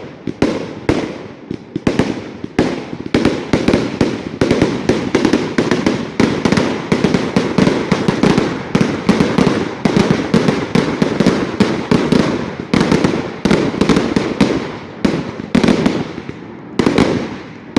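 Fireworks going off in rapid succession: a continuous run of loud, sharp cracks and bangs, several a second, without a break.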